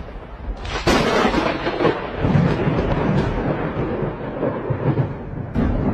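Thunder from a nearby lightning strike: a sudden crack about a second in, then a long rolling rumble, with another sharp crack near the end.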